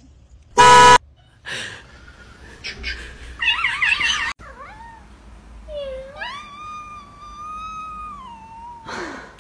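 A kitten meowing: a short wavering cry about three and a half seconds in, then one long drawn-out meow that rises, holds and dips at the end. Near the start there is a very loud short shrill cry.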